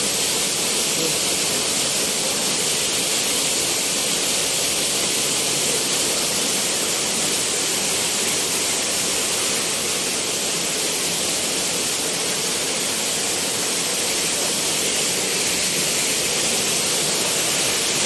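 Steady, even rush of falling water from a waterfall about 20 metres high, pouring into its plunge pool.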